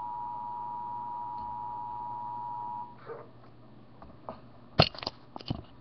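Emergency Alert System attention signal: two steady tones sounding together, announcing an emergency alert (here a tornado watch), cutting off about three seconds in. Then a few sharp clicks and knocks near the end, the loudest just under five seconds in.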